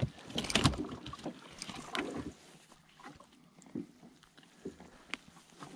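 Handling noise as a caught fish is unhooked: rustling, with a few short clicks and knocks, mostly in the first two seconds, as the lure's hook is worked free of the fish's mouth. Light wind and boat ambience underneath.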